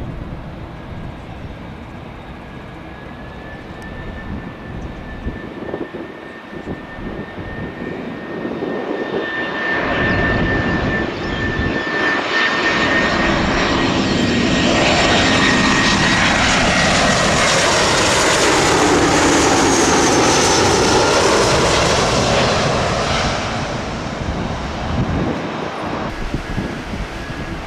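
Airbus A321-211 jet airliner with CFM56 turbofan engines flying low overhead on landing approach. A steady engine whine builds, swells into a loud rush with sweeping pitch about two-thirds of the way through as the plane passes, then fades away.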